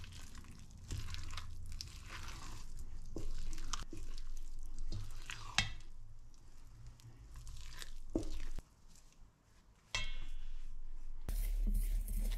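Wooden spoon handle stirring sticky, shaggy bread dough in a stainless steel bowl: irregular wet tearing, squelching scrapes, with a few sharp knocks of the handle against the metal bowl.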